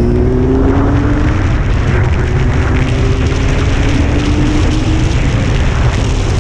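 Wind buffeting the microphone at riding speed, the loudest sound, over a Honda CBR600's inline-four engine. The engine rises in pitch as it accelerates for the first second or so, then runs steadier.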